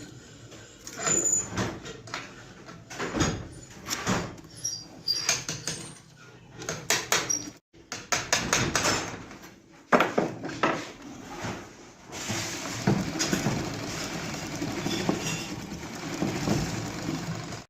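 Metal knocks and clatter of parts being handled and struck, then from about twelve seconds in a steady mechanical running noise that cuts off suddenly.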